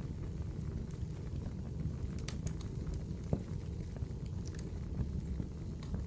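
Wood fire in a fireplace crackling: a steady low rumble of burning with scattered small crackles and one sharper pop about halfway through.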